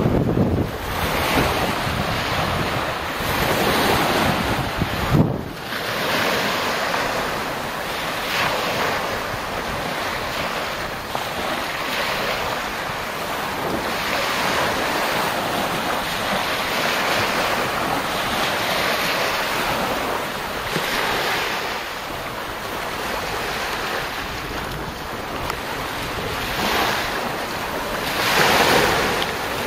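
Small waves breaking and washing up a pebbly beach, swelling and fading every few seconds, the biggest wash near the end. Wind buffets the microphone throughout.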